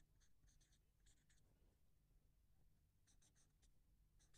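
Very faint writing strokes as a line is drawn in a vector diagram: short scratches in a cluster during the first second and a half, again around three seconds in and just before the end, over a low steady hum.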